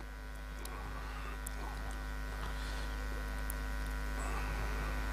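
Steady electrical mains hum with a buzzy edge from the open commentary audio feed, slowly growing a little louder.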